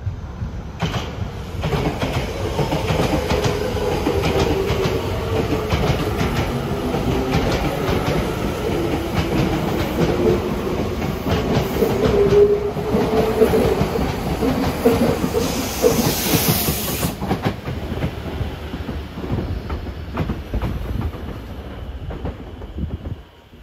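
Tokyu 6000 series electric train pulling out of the station: its traction motors whine in several tones that rise in pitch as it gathers speed, over the rumble and clatter of its wheels passing close by. A brief high hiss sounds about two-thirds of the way through.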